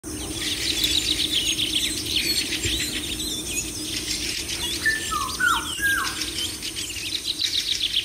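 A flock of birds chirping and twittering rapidly throughout, with three short whistled notes in quick succession about five seconds in.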